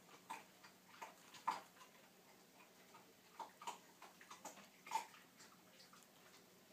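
Faint, irregular clicks and taps as a kitten bites and paws at a boot's laces, the loudest about a second and a half in and again near five seconds.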